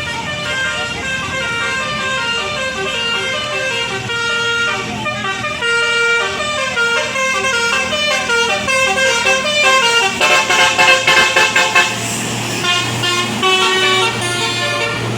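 Telolet basuri multi-tone bus horn playing a tune: a string of held notes changing pitch every fraction of a second, with a fast rattling trill of repeated notes about two-thirds of the way through. A low engine hum sits under the last few seconds.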